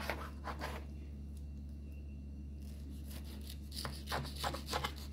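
Kitchen knife slicing and scraping through ripe mango flesh against the skin and cutting board: a few soft strokes about half a second in, then a quick cluster of them near the end, over a steady low hum.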